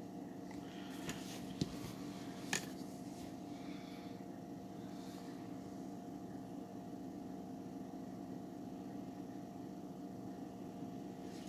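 Steady low electrical hum with several fixed tones, and a few faint short clicks about one, one and a half, and two and a half seconds in.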